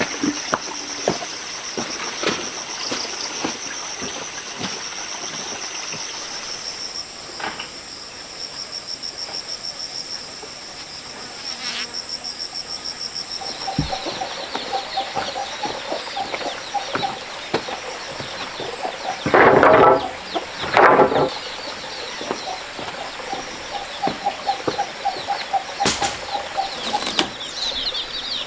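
Insects trilling high and steady with birds chirping, two loud bird calls about two-thirds of the way through, and scattered light knocks.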